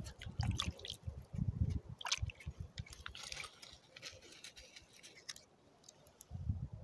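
Wet mud squelching and water dripping as a stone is picked out of the shallows by hand, with scattered small clicks and soft thuds.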